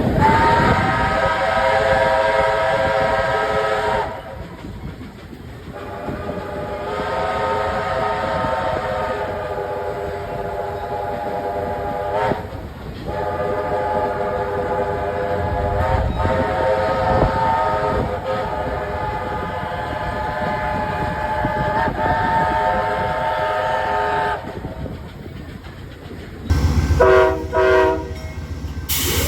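Locomotive air horn sounding a chord of several notes in long blasts: one of about four seconds, one of about five, then a long blast of about eleven seconds. Near the end a different horn gives shorter blasts.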